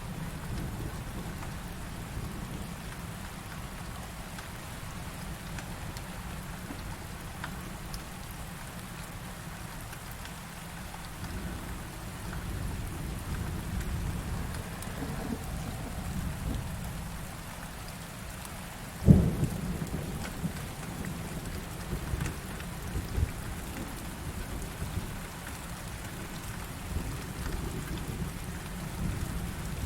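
Heavy thunderstorm: steady rain with low thunder rumbling throughout, and one sharp thunderclap about two-thirds of the way in, the loudest moment, followed by a few smaller rumbles.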